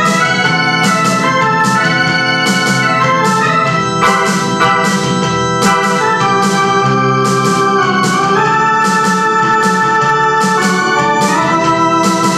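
Portable electronic keyboard playing a melody in held notes, with chords and a bass line beneath and a steady beat.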